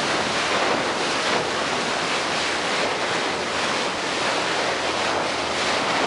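Steady rush of sea water churning along the hull of a moving boat, with wind buffeting the microphone.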